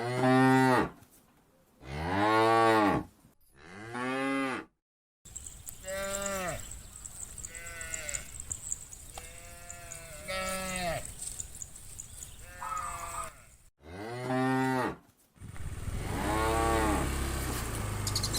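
Cattle mooing: about ten long moos one after another, each rising and falling in pitch. Some are loud and close, others fainter, and the sound breaks off abruptly a couple of times. A low rumble runs under the last moos.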